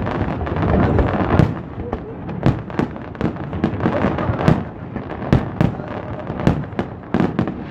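Aerial fireworks display: shells bursting in an irregular run of sharp bangs, about two a second, over a continuous crackle.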